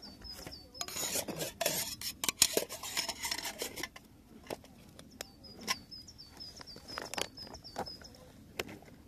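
Metal camping pot being handled, clinking and scraping for about three seconds, then a few light clicks and taps. A bird repeats a quick series of high, short chirps in the second half.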